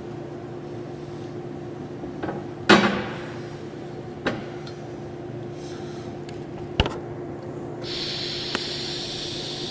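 TIG welding a joint between a DOM steel tube and a chromoly tube: a steady low electrical hum with a few sharp metallic clicks. A loud hiss starts near the end.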